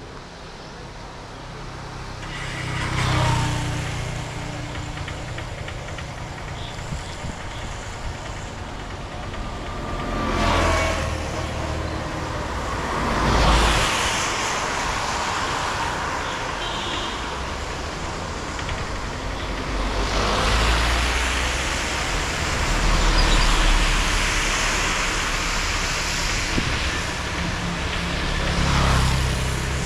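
Road vehicles passing one after another on a wet road, each swelling and fading with tyre hiss and engine rumble, about six pass-bys in all.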